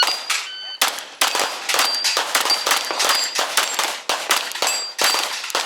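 A rapid string of pistol shots from a 10mm Glock 20SF, with steel plates ringing as they are hit. The shots come irregularly, two to four a second, throughout, each hit leaving a short high ring.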